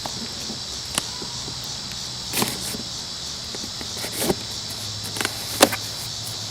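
A cardboard shipping box and its packing being handled as its contents are pulled out: four short, sharp scrapes and knocks spread over the few seconds, over a steady high chirring of crickets.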